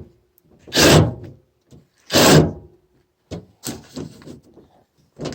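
A hand tool undoing the 10 mm bolts that hold a van's sliding-door outside handle: two short noisy bursts about half a second long and a second and a half apart, then lighter clicks and rattles of metal and plastic.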